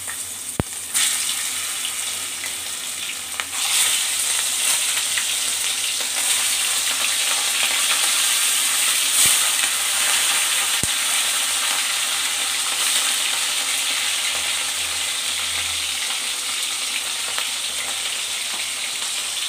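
Katla fish steaks coated in salt and turmeric frying in hot mustard oil in a kadai: a steady sizzle that grows louder about three and a half seconds in as more pieces go into the oil, with three sharp clicks.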